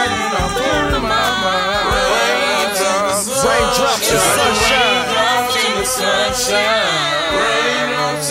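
A song's vocal section: several singing voices hold and bend long notes with vibrato, layered over one another.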